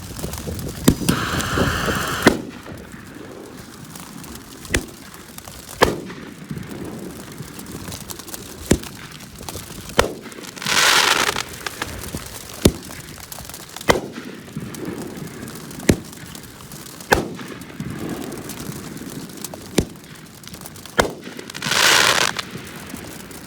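Fireworks going off: a series of sharp bangs, about one every one to two seconds, with three longer rushing bursts, one near the start, one about eleven seconds in and one near the end.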